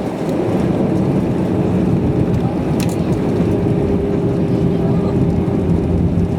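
Airbus A320 cabin noise on the ground after landing: a steady low rumble of the engines and rolling gear. A steady hum joins about halfway through, and there is a single click near the middle.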